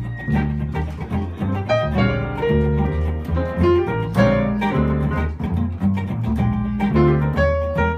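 Live jazz duo of grand piano and plucked upright double bass: the bass plays a steady line of low notes while the piano plays chords and quick runs above it.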